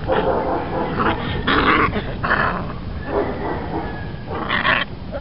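Five-week-old puppy growling and giving several short, high yaps while it is wrestled with by hand, the loudest yaps near the end.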